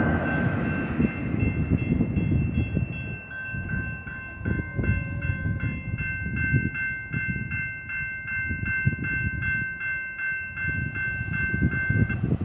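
Railroad crossing warning bell ringing, about two strikes a second, while the gate arms rise. It stops just before the end. The rumble of a receding train fades in the first second.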